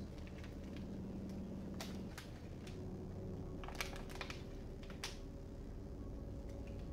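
A few light clicks and taps as plastic water bottles are handled and set down on a tiled window sill.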